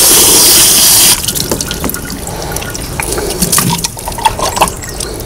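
Garden hose spray gun jetting water into a plastic drain fitting to flush out a clog, a loud steady hiss that cuts off suddenly about a second in. After it, water drips and small plastic clicks as the wet fitting is handled and lifted out.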